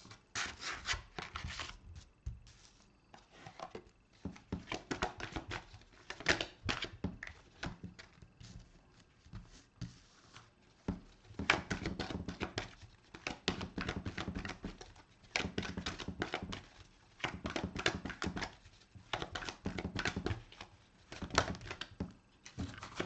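A deck of oracle cards being shuffled by hand: repeated bursts of cards slapping and sliding against each other.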